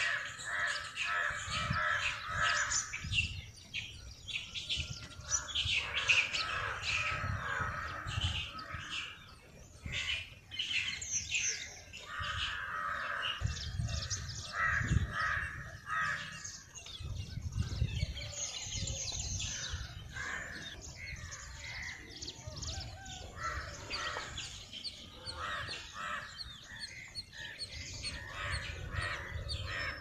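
Many birds calling and chirping, with repeated harsher calls among the chirps, over a low rumble that swells and fades.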